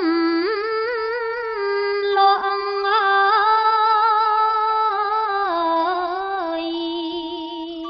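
A woman chanting Khmer smot, Buddhist verse recitation, as a single unaccompanied voice. She holds long notes with a wavering, ornamented pitch that steps up about half a second in and settles lower again after about five seconds.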